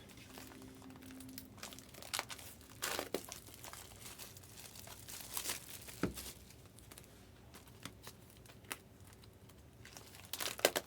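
Trading card pack wrappers crinkling and tearing as packs are opened, in short irregular crackles.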